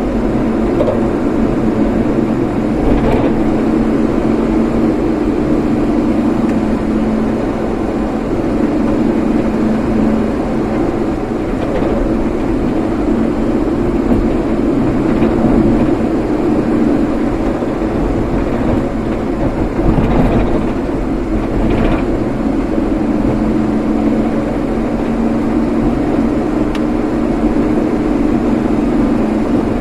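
Steady engine and road noise from a vehicle driving along a road, with a few brief louder moments.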